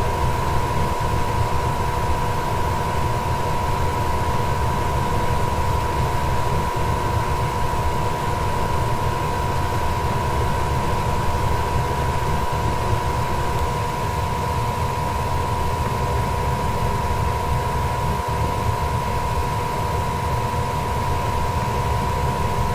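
Goodman furnace running steadily: a constant rush of air with a low rumble and a steady motor whine.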